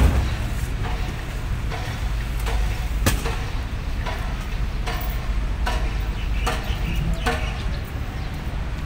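Footsteps walking on a synthetic running track, a step about every 0.8 seconds, over a steady low rumble.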